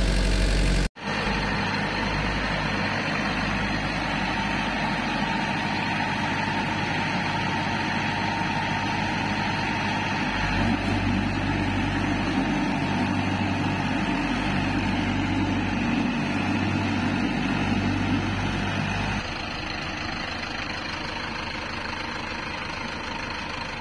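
Mahindra Arjun Novo 655 DI 4WD tractor's diesel engine running steadily under load while towing a second tractor. The engine sound drops out briefly about a second in and is quieter for the last few seconds.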